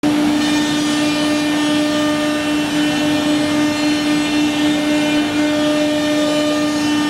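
Spindle of a 9 kW CNC woodworking router running steadily: a constant hum at one pitch with fainter overtones, over a steady rushing noise.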